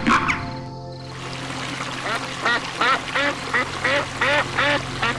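An animal giving a run of about ten short calls in quick succession, roughly three a second, each one arching up and falling in pitch.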